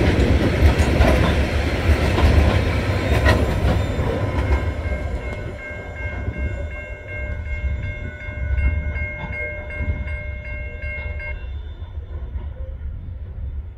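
Coal hopper wagons rolling past, with wheel clicks over the rail joints, fading as the train pulls away. A level crossing bell rings with steady, even strokes over the fading train and stops about eleven seconds in.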